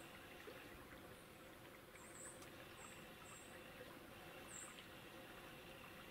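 Near-silent outdoor ambience with several faint, very high-pitched short chirps scattered irregularly through it.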